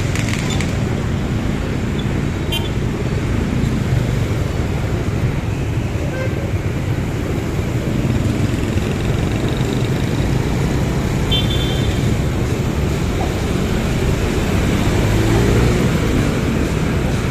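Street traffic: a steady rumble of passing vehicle engines, with a short high horn toot about eleven seconds in and a single sharp tick near the start.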